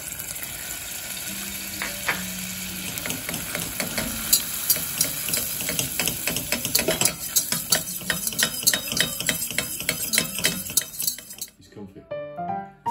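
Butter and flour sizzling in a stainless steel saucepan as a roux is stirred, with quick clicks of the utensil knocking and scraping against the pan from about four seconds in. The sizzling and clicking stop shortly before the end.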